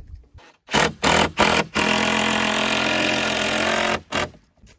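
Cordless drill driving a screw into a wooden wall board: three short trigger bursts, then a steady run of about two seconds, then one more short burst.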